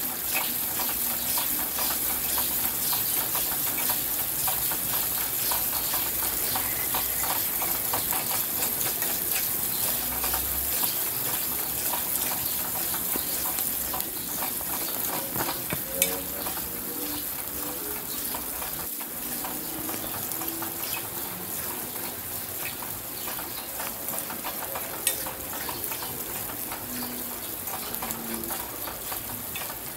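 Ground spice paste frying in hot oil in a metal pan, a steady sizzling and crackling as a spatula stirs it. Two sharp clicks stand out, one a little past the middle and one later.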